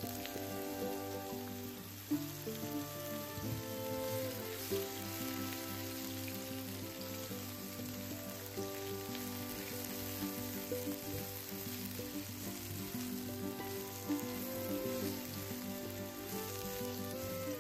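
Sliced sponge gourd sizzling in hot oil with cumin in a kadhai, turned over with a silicone spatula with a few light knocks against the pan. Background music with a slow held melody plays over it.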